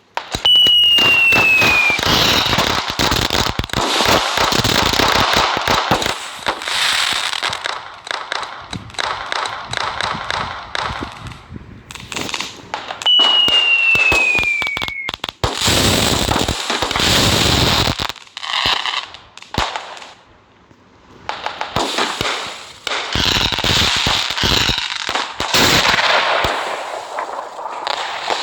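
Diwali firecrackers crackling and popping in dense, loud runs, with short quieter gaps. Twice, a whistling firework gives a falling whistle, followed by more crackling.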